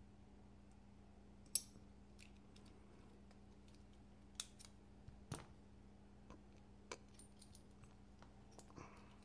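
Sparse small sharp clicks and taps of metal folding-knife parts being handled and fitted together: one louder click about one and a half seconds in, then several fainter ones spread through the rest, over a faint steady hum.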